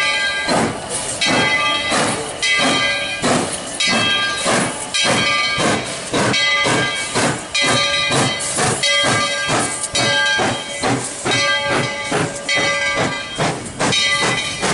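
Tweetsie Railroad's No. 12, a narrow-gauge 4-6-0 steam locomotive, chuffing as it moves past: regular exhaust beats with hissing steam between them. A ringing tone sounds again and again over the chuffs.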